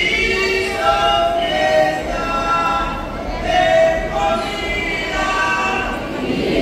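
A crowd of many voices singing together without instruments, in held phrases of about a second each.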